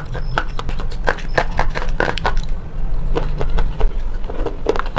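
Slate pencils being bitten and chewed: a quick run of sharp, dry crunches and clicks, with a short lull a little past halfway, over a steady low hum.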